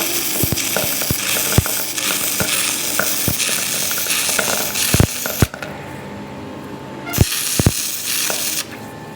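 Metalworking on a truck axle: a harsh hiss that starts and stops abruptly, broken about two thirds of the way through, with many sharp metallic clicks and knocks.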